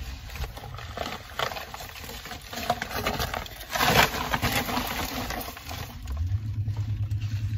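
Close rustling and handling sounds as a person shifts about while pulling on a dust mask, with scattered small clicks and scuffs and a louder scuff about four seconds in. A low hum comes in near the end.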